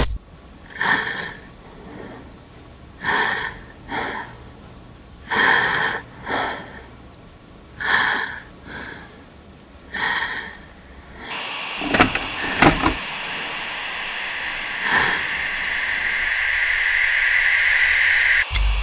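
Wheezing breaths, mostly in pairs, about every two seconds. About eleven seconds in, this gives way to the hiss of VHS tape static with a few sharp clicks and a steady high whine that grows louder.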